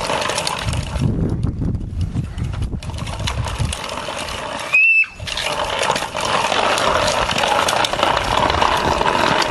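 Small plastic wheels of a child's ride-on toy rattling and clattering over concrete paving blocks. A brief, loud high squeak cuts in about halfway through.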